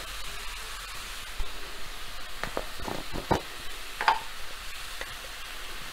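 Diced carrots, capsicum and sweet corn frying in oil in a pan, a steady soft sizzle. Over it come a few light clicks and knocks as spice jars and a lid are handled, one a brief clink about four seconds in.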